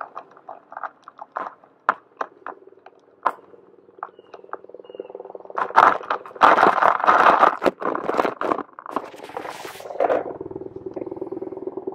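Skateboard rolling over pavement: a run of sharp clicks and knocks, then a louder, rougher stretch of rolling noise in the middle, settling to a steady rumble near the end.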